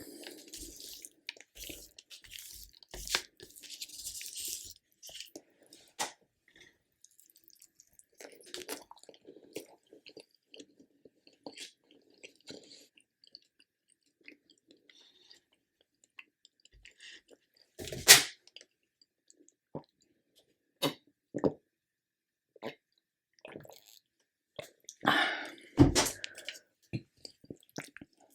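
Close-miked eating sounds: chewing and wet mouth noises with scattered sharp clicks, the loudest about 18 seconds in and another cluster near the end.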